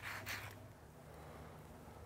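Hand sanding with sandpaper wrapped on a block: a couple of quick rasping strokes that stop about half a second in. After that only a faint, steady low hum of room tone is left.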